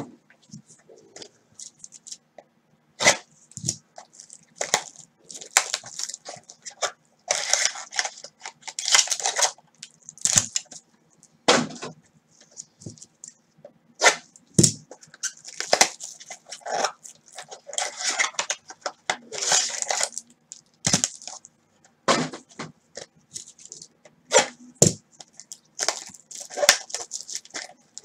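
Plastic shrink wrap on a trading-card box crinkling and tearing in irregular bursts as gloved hands work it open, with sharp knocks of cardboard boxes handled on the table. A faint steady hum runs underneath.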